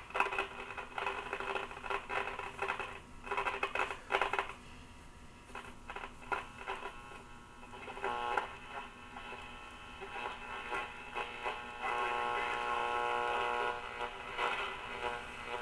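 RCA 262 tube radio's loudspeaker on a shortwave band as it is tuned, with snatches of broadcast voices and steady whistling tones through noise. A louder steady whistle comes in near the end.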